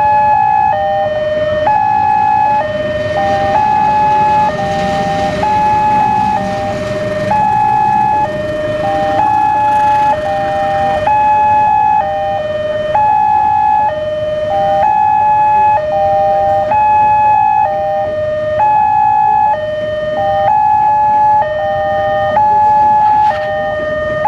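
Railway level-crossing warning alarm sounding continuously, loud alternating high and low tones in a steady repeating pattern, signalling that the barriers are down for an approaching train. A passing passenger train adds a rumbling haze underneath, strongest in the first half.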